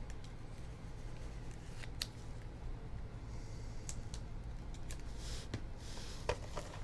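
Trading cards being slid into rigid plastic top loaders: soft plastic swishes and a few light clicks.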